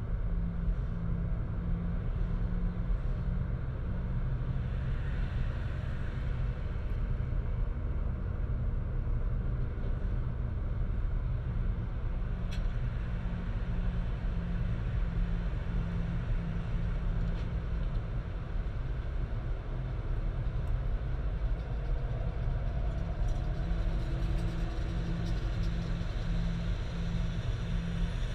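Steady low rumble of a car driving, heard from inside the cabin: road and engine noise with no sharp events.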